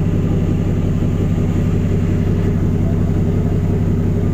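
A ship's engines running with a steady low drone, under a constant rush of wind and water.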